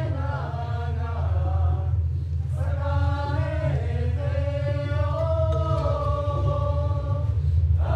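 Chanting voices singing long held notes that slide up and down, pausing briefly about two and four seconds in, over a steady low drone.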